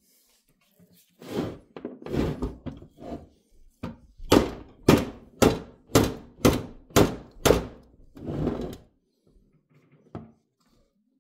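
A rubber mallet hammering on the end of an old AMT drill press spindle: a run of thuds, about two a second, the hardest in the middle, trying to drive out a quill that is seized and does not budge.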